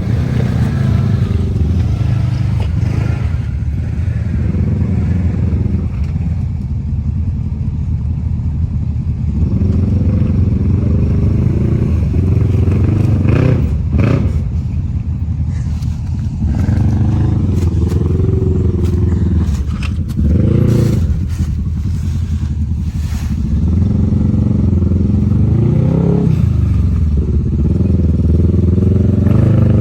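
Side-by-side UTV engine running under load on a trail, revving up and easing off several times, with a few sharp knocks and clatter.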